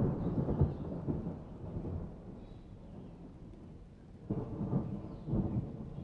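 Boiled rice being tipped in clumps onto a layer of chicken and potato curry in a pan: soft, low rustling thuds, loudest at the start, then two more bursts near the end.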